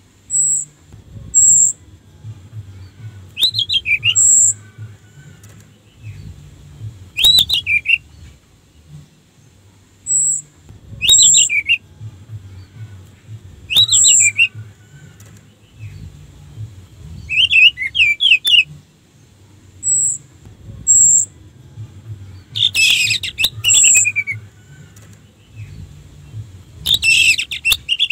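Orange-headed thrush singing: short phrases of quick, falling, warbling notes repeated every few seconds, with brief high, sharp notes between the phrases.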